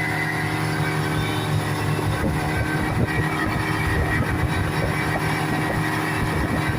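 Speedboat engine running steadily, with wind and water noise growing rougher from about two seconds in.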